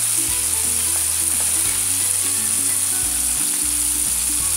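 Cornstarch-coated chicken pieces deep-frying in a pot of hot oil: a steady, even sizzle of bubbling oil.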